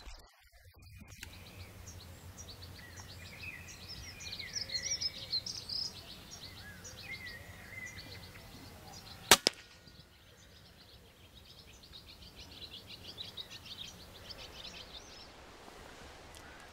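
Small birds singing, then, about nine seconds in, the single sharp crack of a silenced air rifle shot with a second, smaller click right after it. The birdsong carries on afterwards.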